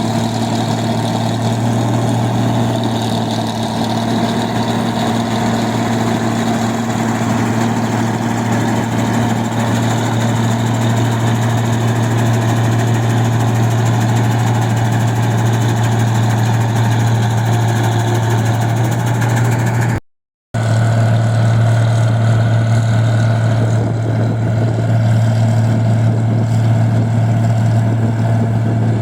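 Engine of a rice-processing machine running steadily at a constant speed with an even drone; the sound drops out for a split second about two-thirds of the way through.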